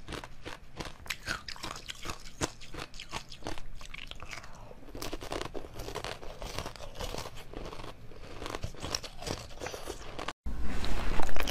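Close-up eating sounds of a blue jelly ring: sharp crunches as it is bitten, many in the first few seconds, then softer continuous chewing. About ten seconds in the sound cuts out for a moment and comes back louder with more eating sounds.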